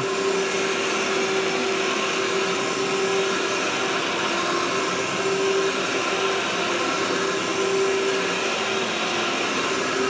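Workhorse upright vacuum cleaner running steadily with its brush roll turning, pushed slowly across carpet: an even whir with one constant hum tone.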